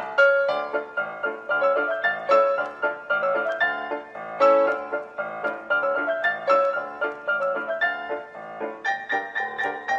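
Background piano music: a tune of quick, separate struck notes, several a second.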